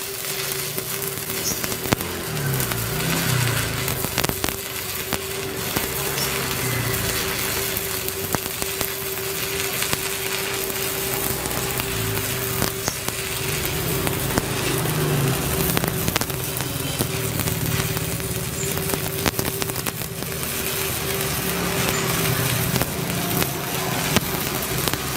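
Small Japanese-domestic stick (arc) welder running a continuous bead with a 3.2 mm electrode on 10 mm steel plate: steady crackling and sizzling of the arc over a constant hum. The arc holds smoothly without the rod sticking.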